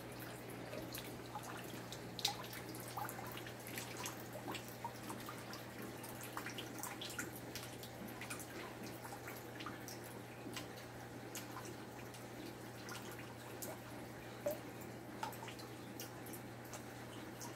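Aquarium water dripping and bubbling in irregular small plinks over the steady low hum of the tank's pumps.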